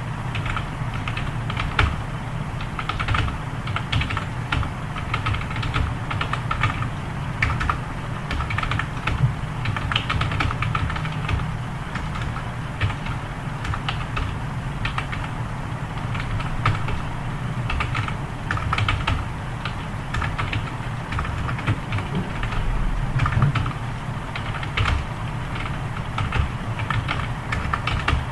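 Fast, continuous typing on a computer keyboard: a steady irregular patter of key clicks, several a second, over a low steady hum.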